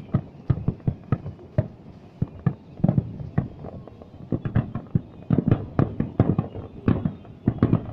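Fireworks shells exploding in a fast, irregular run of bangs, several a second, coming thicker from about five seconds in.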